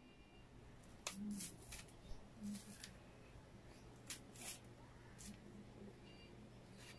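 Skins being stripped from unripe green bananas by hand: a run of short rasping, tearing strokes, some in quick pairs.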